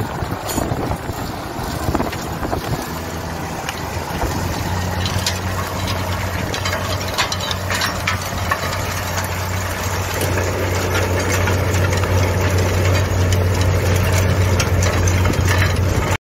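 Tractor diesel engine running steadily, its low hum growing louder and steadier about four seconds in. The sound cuts off suddenly at the very end.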